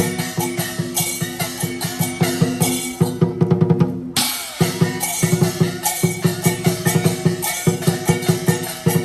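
Chinese lion dance percussion: a drum beaten in rapid strokes with clashing cymbals over it. The cymbals drop out for about a second around the middle.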